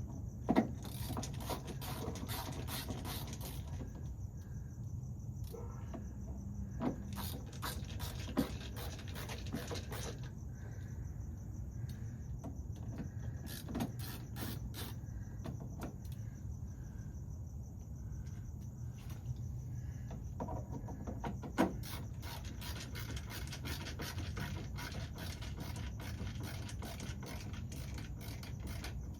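Hand work on car parts: scattered clicks, taps and scraping of tools and small parts, with runs of rapid fine ticking and a few sharper knocks, over a steady low hum.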